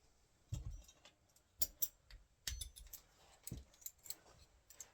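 Irregular light clicks and knocks of door-fitting hardware and tools being handled, about seven in all, a couple of them with a dull low thud.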